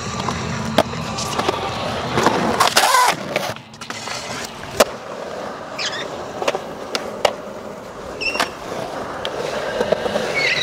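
Skateboard wheels rolling over a concrete skatepark, broken by several sharp clacks of the board, with a loud scrape of the board on concrete about two to three seconds in.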